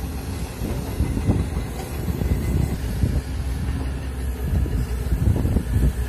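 Komatsu PC200 hydraulic excavator's six-cylinder diesel engine running steadily under work, with irregular knocks and clanks from the machine throughout.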